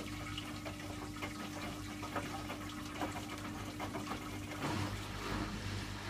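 Hoover front-loading washing machine tumbling its wash on a short refresh cycle: water sloshing and splashing in the drum over a steady motor hum. About four and a half seconds in, the hum's tone breaks off briefly as the sloshing swells.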